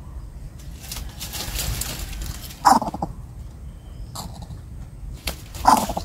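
Two short, loud animal calls about three seconds apart, each dropping in pitch, one a little before the middle and one near the end. A rustling hiss comes before the first call.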